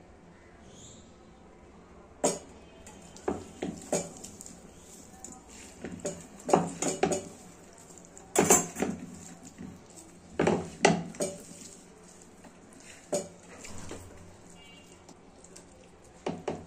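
Wok knocking and rattling in irregular clatters as raw small fish, onions, tomatoes and spices are tossed and mixed by hand in it, the loudest clatters in the middle.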